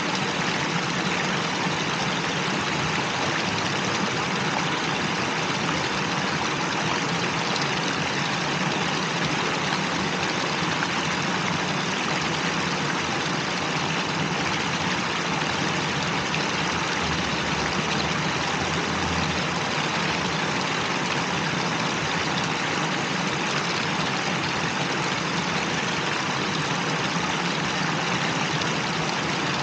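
Plaza fountain, water jets pouring from a stone wall into a basin: a steady, even rush of splashing water.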